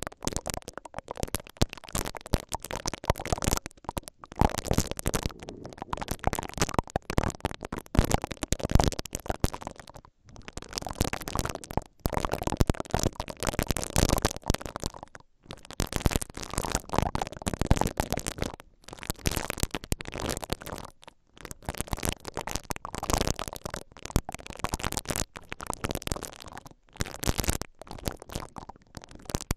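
Silicone brush ear picks rubbed and twisted against both grilles of a stereo recorder's microphones, giving a close, dense, scratchy brushing. It comes in passes of a few seconds, with a brief pause about every five or six seconds.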